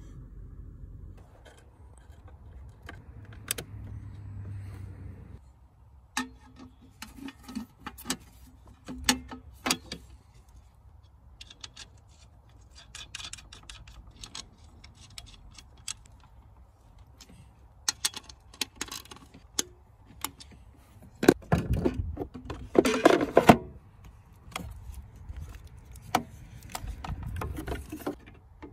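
Hands working in a car's engine bay: scattered clicks, taps and rattles of plastic and metal parts as a fuse is fitted and the aluminium ECU and its wiring connectors are handled back into place. A loud spell of clattering comes a little past two thirds of the way through.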